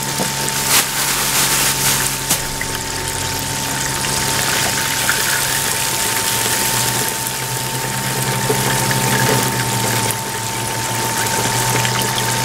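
Breaded chicken pieces deep-frying in hot oil in a fryer basket: a dense, steady sizzle with the oil bubbling.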